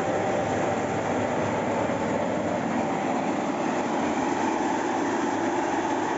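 Homemade corn sheller running, its electric motor driving the threshing drum by a belt: a steady mechanical running noise with a faint hum.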